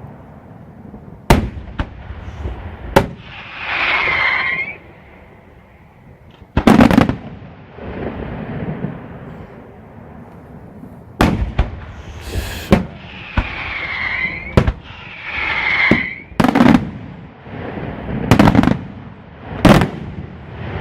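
Aerial firework shells bursting overhead: a string of sharp, loud bangs at uneven intervals, some trailing off in a rumble. Three brief whistling glides sound between the bangs.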